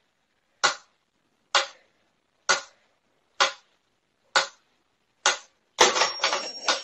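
Mechanical pendulum metronome ticking steadily, one sharp tick a little less than a second apart. Near the end a louder burst of noise covers the ticks.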